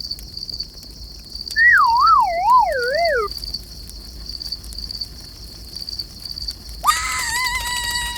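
Crickets chirping in a steady, evenly pulsing high trill. About a second and a half in, a wavering tone slides downward for under two seconds, and near the end a high steady tone is held.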